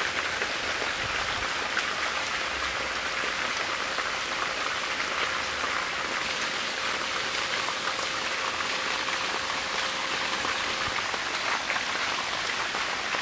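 Water spraying from a Mist Ace 20 perforated flat irrigation tube overhead: a steady hiss of fine spray and drops striking the greenhouse's plastic film.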